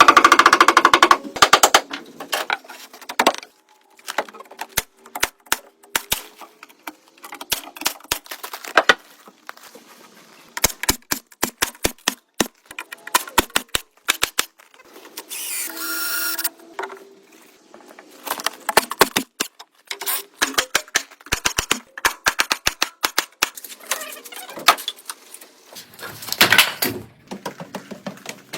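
Irregular runs of sharp clicks and knocks, rapid in places, with a brief pitched ringing sound about halfway through.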